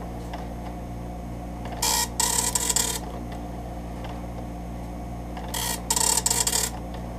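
Epson MX-80 III nine-pin dot matrix printer printing a test page: two bursts of print-head buzzing, each about a second long, starting about 2 and 5.5 seconds in, with a steady low hum between them.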